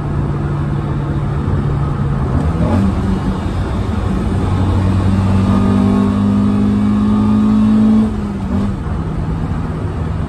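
Toyota Corolla AE111's 1.6-litre 4A-FE four-cylinder engine running through a newly fitted Powerflow exhaust, heard from inside the cabin while driving. It starts as a steady drone. About two and a half seconds in the pitch steps up and the engine pulls harder, rising gradually and getting louder, then drops back suddenly about eight seconds in.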